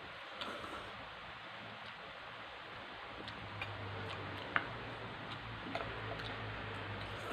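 Faint noises of someone eating ramen: scattered small clicks and ticks, with one sharp click about four and a half seconds in, over a steady low hum and hiss.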